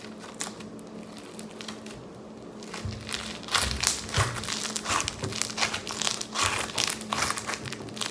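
Floam, slime packed with foam beads, squished and kneaded by hand, giving a crunchy crackling of popping beads. It is sparse at first and turns dense and louder about three seconds in.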